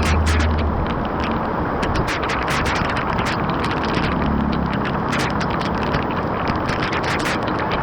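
Water rushing and splashing steadily, with many small sharp splashes over a continuous rush.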